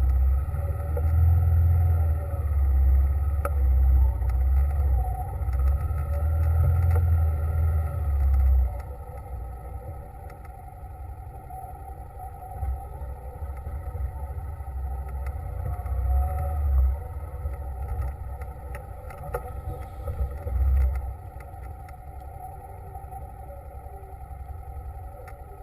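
A motor vehicle running on the move, with a steady engine drone. For the first eight seconds a heavy, uneven low rumble dominates; it then drops away, apart from two short surges later on.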